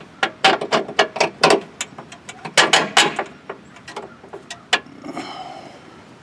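Rapid, irregular sharp metal clicks and knocks as a grille guard mounting piece is worked into tight-fitting factory-drilled holes in the truck's radiator support bar. The knocking stops about five seconds in.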